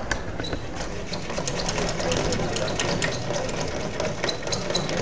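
Rapid, irregular clicking and rubbing from hand work at a classroom board as a written problem is cleared away.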